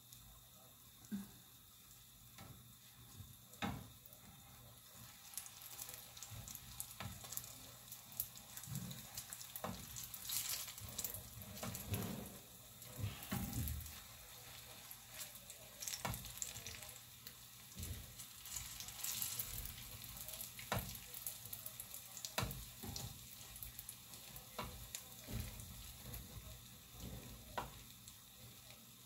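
Banana turon frying in a pan, a steady sizzle and crackle that gets busier about six seconds in. Sharp clicks of metal tongs against the pan come every few seconds as the rolls are turned.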